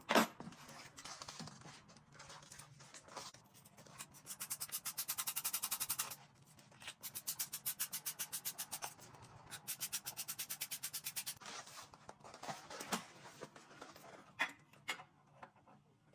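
Ratchet wrench clicking in three quick runs of evenly spaced clicks, tightening the air cleaner's mounting screws. There is a sharp knock at the start and a few knocks of tools on metal near the end.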